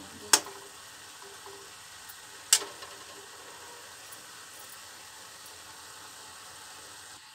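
Grated bottle gourd sizzling steadily in a steel kadhai as its water cooks off, with two sharp clinks of a metal spatula against the pan, about half a second and two and a half seconds in.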